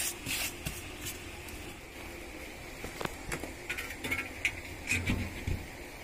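Handling noises: scattered light knocks, taps and rustles as chopped leaf feed is worked in a plastic-lined box and its transparent cover is handled. Behind them runs a steady high-pitched background hum.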